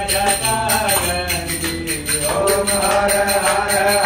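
Hindu devotional song: a voice singing over a steady jingling percussion beat.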